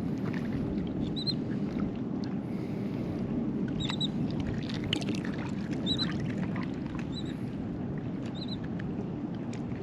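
Steady rush of wind and shallow bay water around a wading angler, with short high chirps recurring every second or two and a few light ticks.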